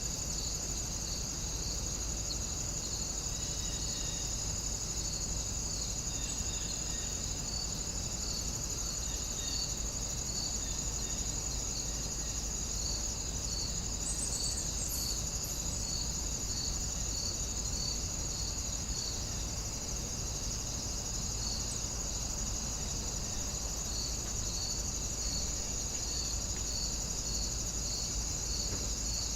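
Warm-weather nature ambience of crickets: a steady high trill with a slower chirp repeating evenly beneath it, over a faint low rumble.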